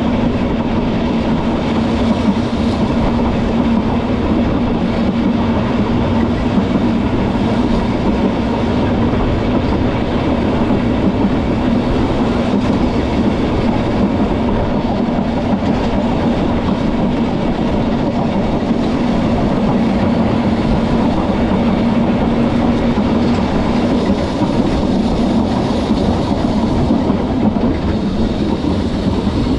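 Vintage Manx Electric Railway electric tramcar running along the line: a steady rumble of wheels on rail, with a low hum that fades out about 24 seconds in.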